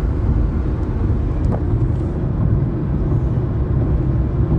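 Steady low rumble of road and tyre noise heard from inside a moving car's cabin.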